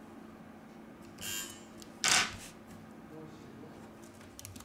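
Two short scratchy rustles, the second louder and sharper, from hands working plastic film and adhesive tape on a phone's frame.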